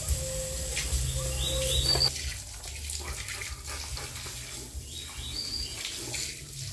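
Water running from a garden hose onto a dog and the wet ground, with short bird chirps twice.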